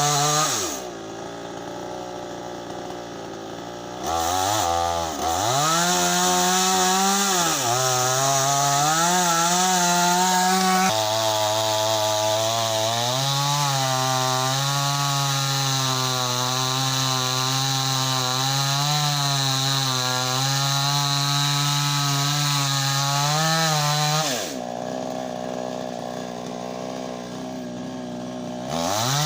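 Two-stroke chainsaw engine running at high revs, dropping to idle about a second in and again near the end, and revving back up each time after a few seconds.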